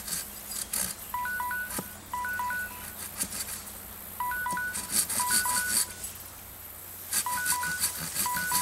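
Digital timer alarm beeping in repeated double bursts of short electronic chirps, about every three seconds, signalling the pouch meal's cooking time is up. Under it come intermittent scrapes and clicks of a machete blade shaving a wooden stick.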